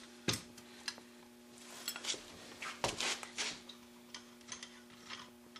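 Scattered metal clinks and knocks from handling an Arctic Cat F7 snowmobile rear suspension skid. A faint steady hum runs underneath.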